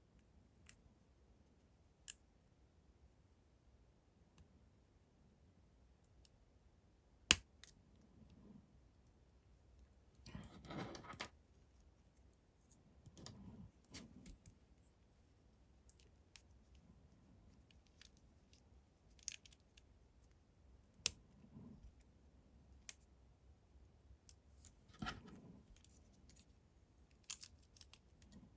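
Hands unboxing LEGO minifigure blind boxes: packaging rustling in short stretches and small plastic pieces clicking. The clicks are scattered and sharp; the loudest comes about seven seconds in.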